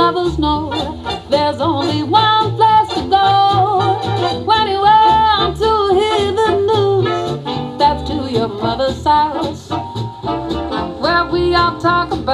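Jazz song playing, a singing voice with wavering, held notes over swing-style instrumental backing.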